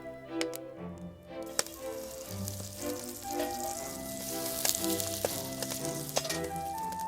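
Food sizzling in a frying pan over a campfire, with scattered sharp pops; the sizzle grows louder about a second and a half in. Background music plays throughout.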